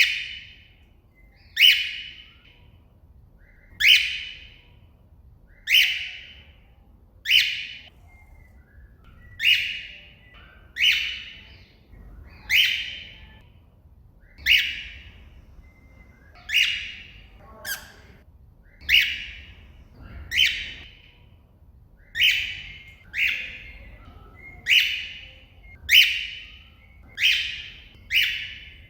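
A cockatiel giving its loud contact call over and over, about one call every second and a half, each starting sharply and trailing off: a cockatiel calling out to another bird.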